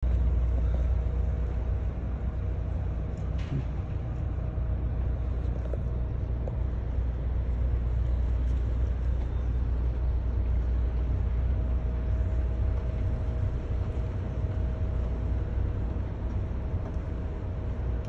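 Steady low engine rumble with a faint constant hum over it, unchanging throughout.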